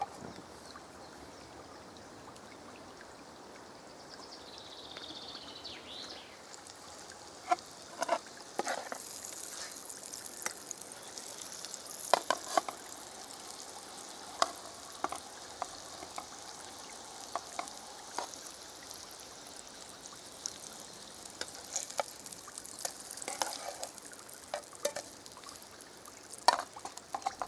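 Spelt patties frying in hot fat in a small camping frying pan, a steady high sizzle that builds over the first several seconds, with frequent sharp crackles and clicks throughout.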